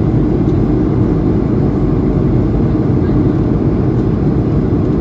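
Steady in-flight cabin noise of an Airbus A220-300 heard from a window seat beside the engine: an even low rumble of its Pratt & Whitney PW1500G geared turbofans and the airflow.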